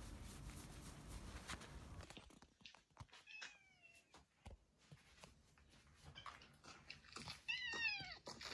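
A domestic cat meowing: one falling meow a few seconds in, then a quick run of three or four short falling meows near the end.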